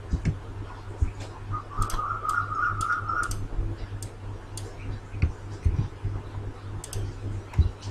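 Scattered single clicks of a computer mouse and keyboard during spreadsheet editing, over a steady low electrical hum.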